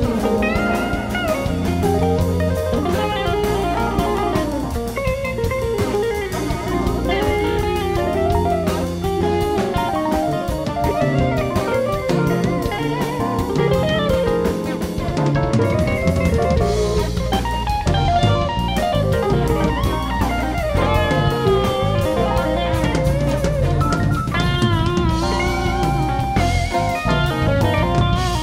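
Live rock band playing an instrumental jam: electric guitars picking winding lead lines over a steady drum kit and bass.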